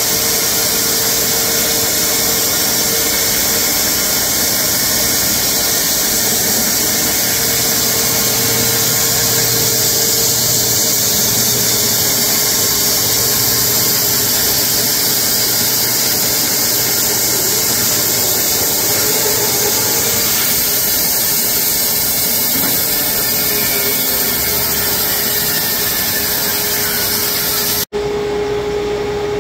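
WoodMizer LX250 band sawmill running as its head is pushed through a large horse chestnut log, a loud steady whir and hiss. Near the end the sound drops out for an instant and comes back as a steadier hum.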